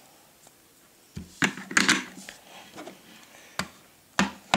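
Plastic toy campervan and figures clicking and knocking on a wooden table as the pieces are handled and the van's roof is fitted on: a quiet first second, then a string of sharp knocks and clacks, loudest around two seconds in.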